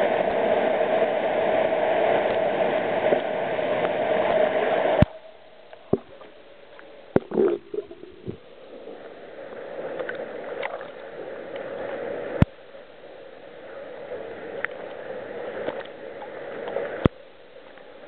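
Loud rushing water noise that cuts off suddenly about five seconds in, followed by quieter splashing and gurgling of cave-river water with a few sharp knocks.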